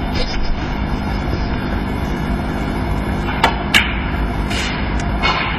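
Two sharp clicks of snooker balls about a third of a second apart, cue tip striking the cue ball and the cue ball striking a red, over a steady low hum of the arena.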